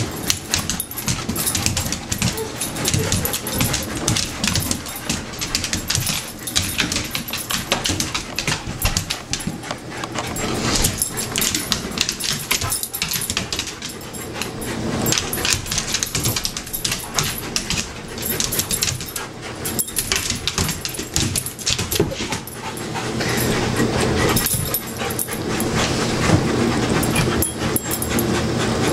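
Dogs scrambling after a laser dot on a hardwood floor: their nails click and skitter in quick, uneven runs. Over the last few seconds the sound turns steadier and louder, fitting the heavy panting of a tired dog lying on the floor.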